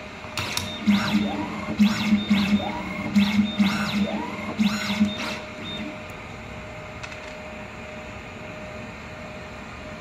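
Automatic coaxial cable stripping machine running one stripping cycle: a series of sharp mechanical clicks with pulses of low buzzing and three short motor whirs that rise in pitch, stopping after about five seconds.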